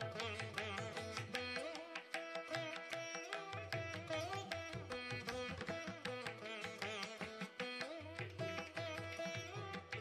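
Background music in a South Indian classical (Carnatic) style, a wavering, ornamented melody over a low pulsing beat.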